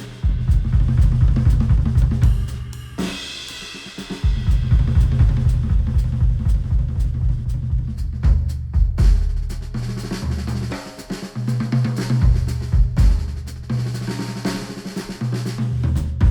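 Instrumental music with a driving drum kit and heavy bass, played back through Sennheiser headphones and picked up by microphones at the earcups. The low end drops out briefly about three seconds in, then the beat returns.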